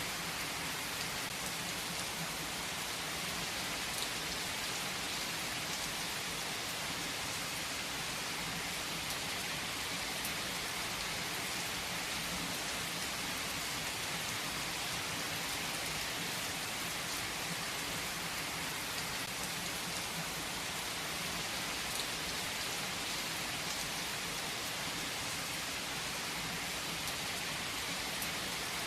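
Steady rain falling, an even hiss of many drops with an occasional louder single drop standing out.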